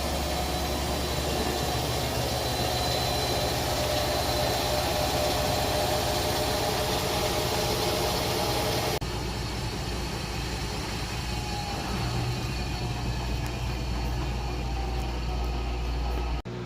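Bosch 500 Series washing machine drain pump motor running with a steady low hum, the sound changing abruptly about nine seconds in.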